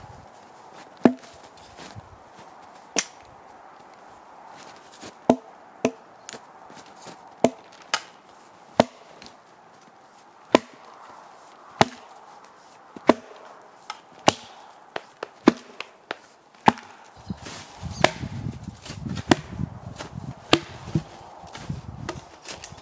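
Red-handled hatchet chopping into barked logs: about twenty sharp strikes of steel on wood, roughly one a second, some in quick pairs. A low rumbling noise runs under the last few strikes.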